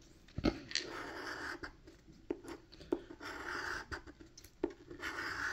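A coin scraping the coating off a scratch-off lottery ticket in several short stretches of scratching, with a few light clicks of the coin on the card.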